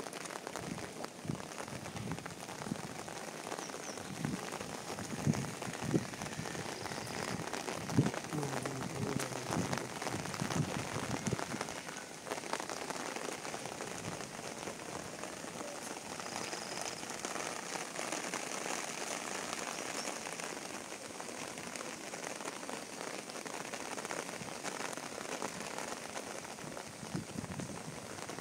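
Heavy rain falling steadily on a waterlogged field and foliage, an even hiss throughout. A few louder close knocks come in the first half, the strongest about eight seconds in.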